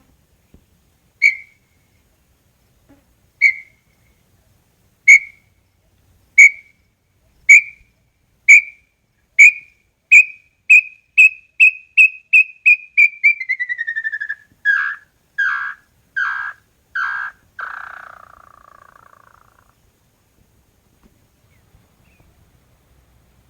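Small-billed tinamou (inhambu-chororó) singing one full song: clear whistled notes about two seconds apart that come faster and faster into a quick run, slide down in pitch, and close with five slower, lower slurred notes that fade away.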